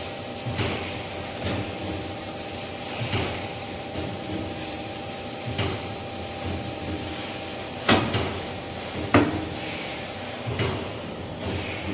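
Metal knocks and clanks as a long band saw blade is slid by hand along the guides of a saw blade sharpening machine, with two sharper knocks about eight and nine seconds in. A steady machine hum runs underneath.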